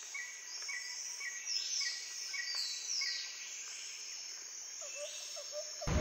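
Forest insects and birds: a steady high insect drone, with a short chirp repeating about every half second and several falling whistled calls, then a run of quick lower notes near the end.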